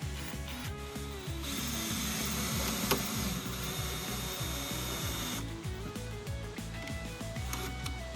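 A power tool runs for about four seconds in the middle, with one sharp click partway through, over background music.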